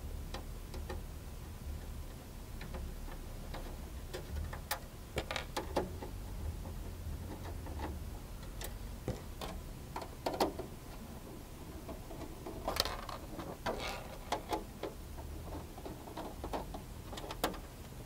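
Quiet, scattered clicks and ticks of a hand screwdriver backing out the screws that hold a power supply to a steel PC case, over a low steady hum.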